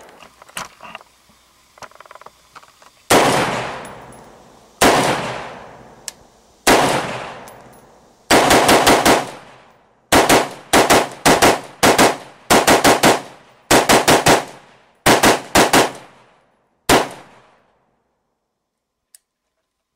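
A 5.56 short-barreled AR-15 carbine with an 8.5-inch barrel and a titanium muzzle brake firing. Three single shots come about two seconds apart, then quick strings of two to five shots. Each shot is a sharp crack followed by a long echoing tail.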